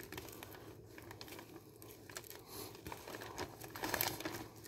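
A knife making short cuts through a frozen sunfish along its back and rib cage: a faint run of irregular scratchy clicks, with a louder cluster near the end.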